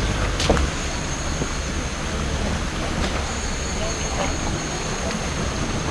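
Off-road vehicle engine running steadily, a low rumble with a thin, steady high-pitched whine above it and a few faint clicks.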